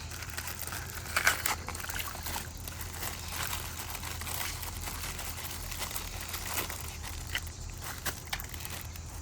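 Water-filled plastic bag being handled and opened by hand: irregular crinkling and crackling of the plastic with some water sloshing, the sharpest crackle a little over a second in.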